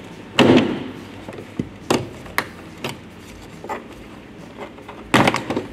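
Plastic car door trim being pried off with a plastic trim tool, its push clips snapping loose: a loud snap about half a second in, a few lighter clicks, then a cluster of snaps near the end as the corner trim piece over the tweeter pops free.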